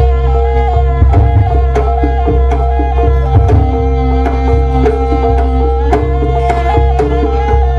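Jaranan gamelan music playing loudly: kendang hand drums beating a steady rhythm under a held tone and a stepping melody line.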